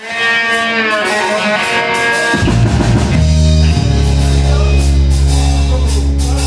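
Live rock band playing through amplifiers: held guitar tones ring out at first, then the bass guitar and drum kit come in heavily about two and a half seconds in, with cymbal hits over steady low bass notes.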